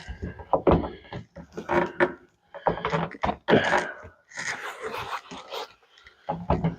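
Irregular knocks, clicks and scrapes of a screwdriver and loose trim hardware being worked at the sun-visor centre mount on the car's roof.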